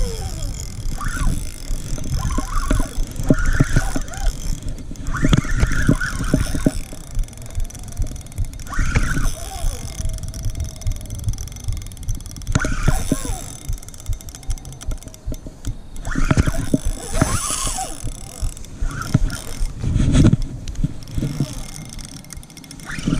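Penn Slammer III 5500 spinning reel being cranked to retrieve line, under a steady low rumble with irregular louder bursts every few seconds.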